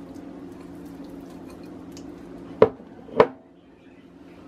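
Wire whisk and glass mixing bowl handled in soft butter: faint light ticks, then two sharp knocks about half a second apart as the bowl and whisk are set down on a stone countertop, over a steady low hum.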